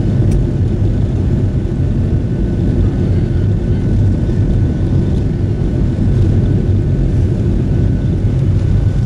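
Boeing 737 jet engines at takeoff power, heard inside the passenger cabin as a loud, steady low rumble during the takeoff.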